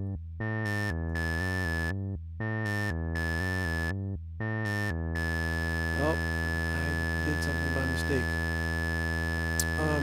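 Arturia ARP 2600 software synthesizer playing a step-sequenced pattern of bright, buzzy notes. The notes come in short repeating phrases with brief gaps between them. About halfway through, the pattern gives way to one steady held note that drones on.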